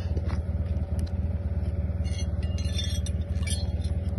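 A vehicle engine idling steadily, with a few light metallic clinks about two to three and a half seconds in.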